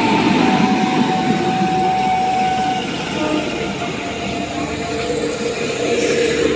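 WAP-7 electric locomotive and its train running in alongside the platform at close range: a loud, continuous rumble of wheels on rail as the locomotive and then the first coaches pass. A steady high tone rides over the rumble for the first three seconds, then fades.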